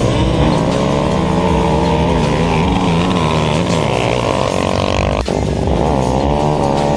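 Several ATV and dirt bike engines revving hard together during a drag race, their pitches repeatedly climbing and dropping, with a brief break about five seconds in.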